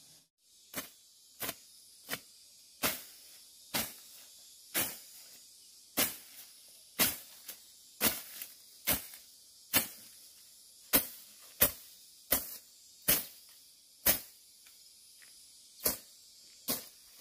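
A series of short, sharp scraping strokes, about one a second and unevenly spaced, the kind a hand tool makes working repeatedly.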